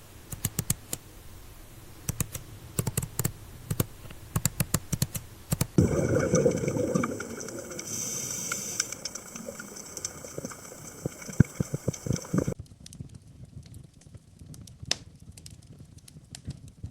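AI-generated sound effects: many irregular sharp clicks and taps, like typing. From about six seconds in a steady hiss with high tones joins them, and after about twelve and a half seconds the hiss stops and the clicks become sparse.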